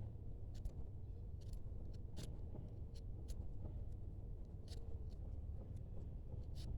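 Scattered light clicks and crackles, about one or two a second, over a low steady hum.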